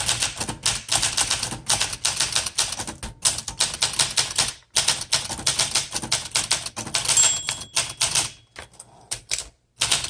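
1965 Olympia SM9 manual typewriter being typed on at a quick pace: a rapid run of keystrokes with the typebars striking the platen. The margin bell rings once about seven seconds in, and the strikes thin out near the end.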